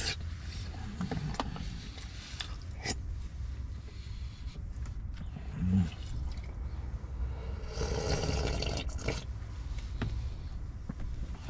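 Someone eating from a plastic food container with a spoon: scattered scrapes and clicks of the spoon against the plastic, over a low steady hum, with a longer scraping noise about eight seconds in.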